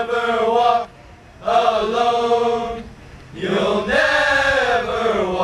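Soccer team singing together in unison, long held notes in phrases with short breaks: one phrase ends about a second in, another runs from about a second and a half to three seconds, and a third starts about half a second later and carries on to the end.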